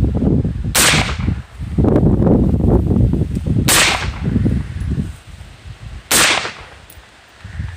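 AR-style rifle fired three times, roughly three seconds apart, each a sharp crack. A low rumbling haze fills the gaps between the first shots.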